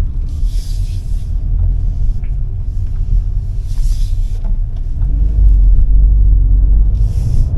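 Inside the cabin of a moving VW Golf 8 GTI: a low rumble from its turbocharged four-cylinder engine and road noise, growing louder a little past halfway as the car picks up speed.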